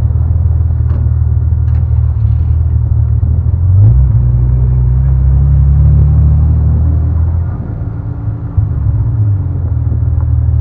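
BMW E34 525i's straight-six engine and exhaust rumbling steadily as the car rolls at low speed. It swells louder about four seconds in, drops away briefly near the eight-second mark as the throttle eases, then settles back to a steady rumble.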